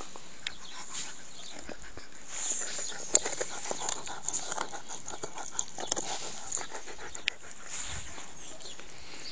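Alaskan Malamute panting close up, with a run of small clicks and rustles through the middle.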